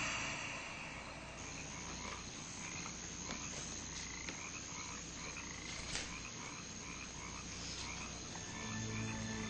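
Night chorus of frogs and insects: short chirps repeating about twice a second over a steady high-pitched whine. Low sustained music tones come in near the end.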